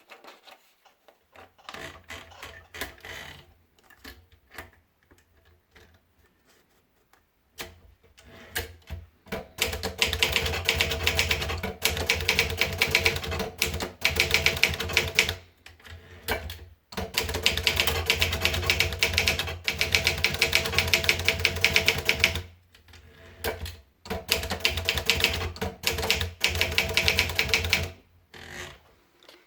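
Olivetti Studio 46 manual portable typewriter being typed on, its keys and typebars clacking. A few scattered strokes come first, then long runs of fast typing broken by a couple of short pauses.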